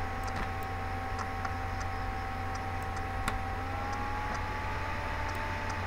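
Steady low electrical hum with a thin whining tone that rises slightly about halfway through, and a few faint, scattered mouse clicks.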